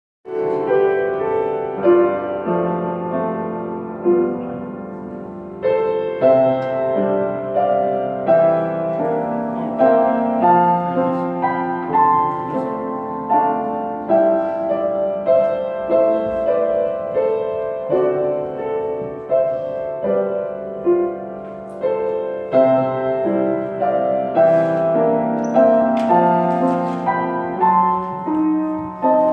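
Piano music: chords under a melody, each struck note fading away before the next.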